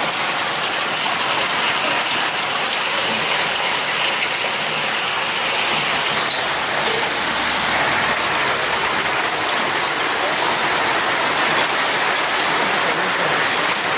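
Heavy rain mixed with hail pelting down, a loud, dense, steady patter with a clattering edge.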